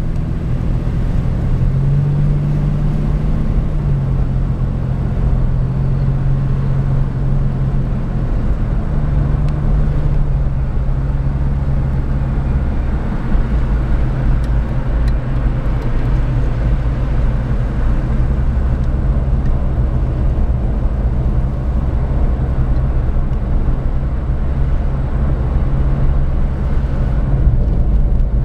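Road noise inside a moving car's cabin: a steady low rumble of tyres and engine, the engine hum shifting in pitch a few times as the car's speed changes.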